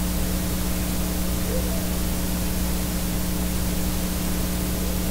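Boosted quiet passage of an old BASF Chrome Extra II compact cassette: steady tape hiss over a low hum. Twice it carries a faint, voice-like ghost, print-through (post-echo) of a loud shout imprinted from neighbouring windings of the tape.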